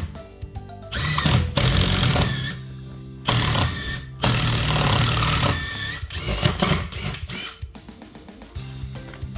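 Background music with a steady beat, overlaid by several bursts of a power tool running, each lasting up to about a second and a half, between about one and six seconds in.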